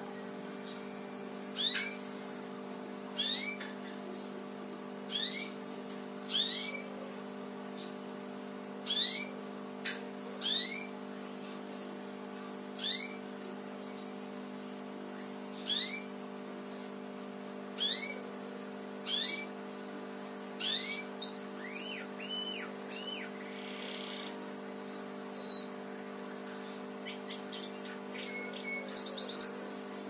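Caged domestic canary singing in a house-sparrow style: single short upward-sliding cheeps repeated every one to two seconds, then a quick run of several arched notes a little after the middle.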